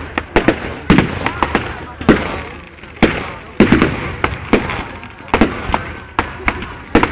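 Aerial fireworks bursting: an irregular, rapid string of loud, sharp bangs, two or three a second, each trailing off briefly before the next.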